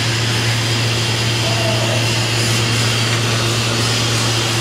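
Steady low hum under an even, fan-like rush of air from shop machinery running at idle.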